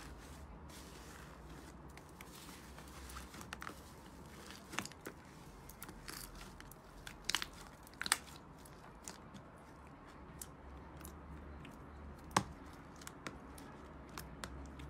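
Hand squeezing and kneading soft slime in a plastic tub, giving faint squishes and scattered sharp pops and crackles. The loudest pops come a little after the middle and again about four-fifths of the way through.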